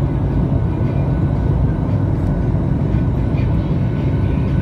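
Steady roar of a jet airliner heard inside the cabin beside the wing: the engine's drone and the rush of air past the fuselage, deep and unbroken.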